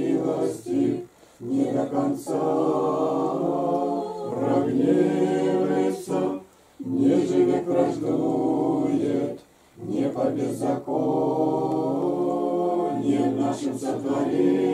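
Small congregation of men, women and children singing an Orthodox church chant a cappella, in long held phrases with brief pauses for breath between them.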